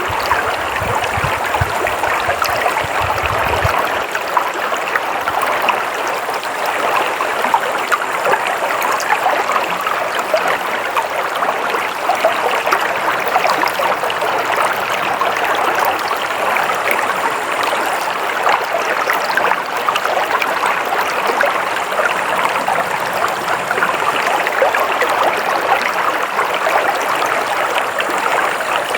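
Stream water flowing steadily, a continuous rush and babble, with a low rumble in the first few seconds.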